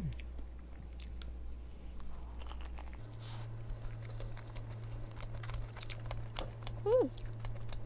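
Close-up chewing of a lemon meringue tart with a cookie-like crust: soft mouth sounds with many small crunchy clicks.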